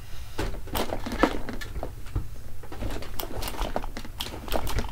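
Markers clicking and clattering against each other and a cup as they are reached for and handled, a string of irregular sharp clicks and knocks.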